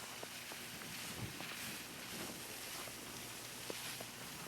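Faint outdoor background with steady wind hiss on the microphone, a soft low thump about a second in, and a few faint clicks.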